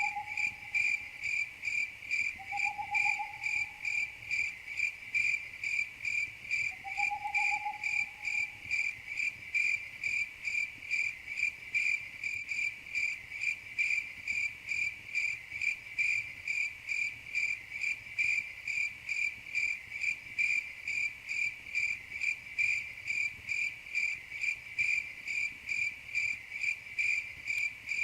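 Crickets chirping in a steady, even rhythm, about two to three high-pitched chirps a second. A faint, short, lower whistled note sounds three times in the first several seconds.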